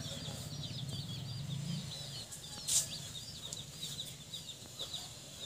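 Newly hatched chicks peeping, a constant scatter of quick, high chirps. A low rumble sits under the first two seconds, and a single sharp click comes about three seconds in.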